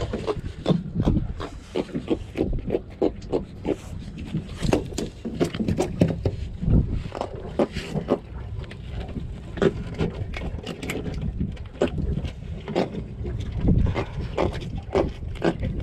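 A freshly caught jack flopping on a fiberglass boat deck: a steady run of irregular slaps and thumps.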